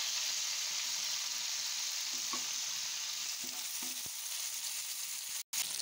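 Sheela fish shallow-frying in hot oil in a pan: a steady sizzle, with a few light knocks of a spatula against the pan as the fish are turned. The sound cuts out for an instant near the end.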